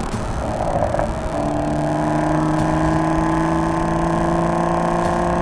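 BMW M340i's 3.0-litre turbocharged inline-six running through an Fi valvetronic performance exhaust, accelerating steadily. After a short rush of noise in the first second, its drone climbs slowly in pitch.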